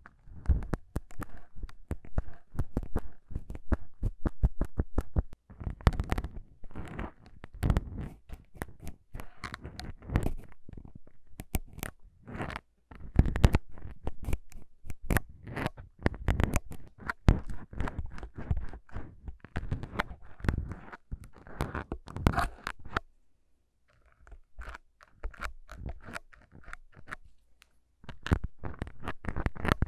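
Plastic syringes with needles worked right against foam-covered microphones: a dense run of quick, irregular clicks and crunchy scratches, breaking off briefly about three quarters of the way through.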